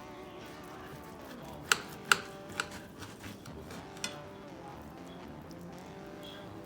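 Cutlery clicking against a plate as a grilled T-bone steak is cut open, about four sharp clinks near the middle and a louder knock right at the end, over soft background music.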